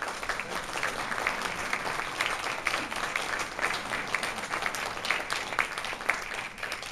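Audience applauding: many people clapping their hands at once, steady and dense.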